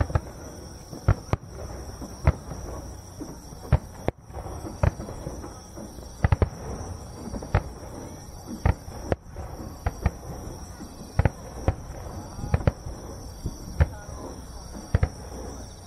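Aerial firework shells bursting in a display, a run of sharp bangs at irregular spacing, often one or two a second and sometimes several in quick succession.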